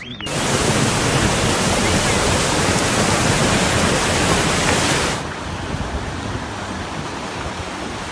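Rushing floodwater: a steady, loud rush of water that turns duller and lower about five seconds in.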